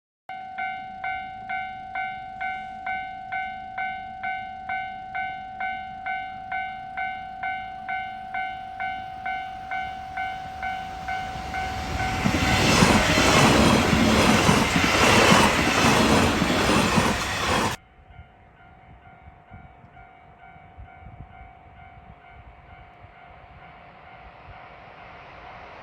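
Japanese level-crossing warning bell ringing steadily about twice a second, then drowned by a train passing loudly over the crossing from about twelve seconds in. The train noise cuts off suddenly, leaving the crossing bell fainter, with a low rumble building near the end.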